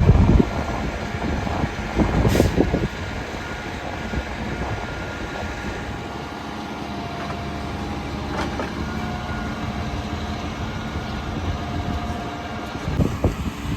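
Diesel concrete truck running steadily at a concrete pour, with a few sharp knocks, the loudest right at the start and others about two and eight seconds in.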